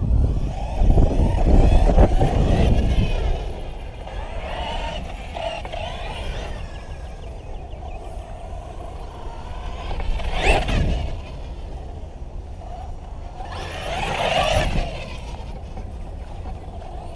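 Brushless electric motor of an RC monster truck on a 6S lipo whining as it speeds up and slows in repeated bursts of throttle, with two louder surges near the middle and toward the end. A low rumble runs under it, loudest in the first few seconds.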